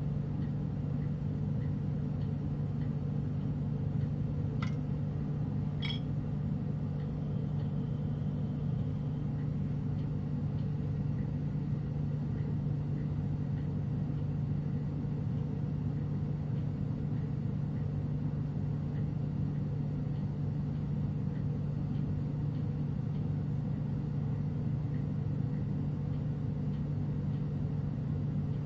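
Steady low rumble and hum of a bench-top glass lampworking torch burning, constant throughout. Two faint sharp clicks come about five and six seconds in.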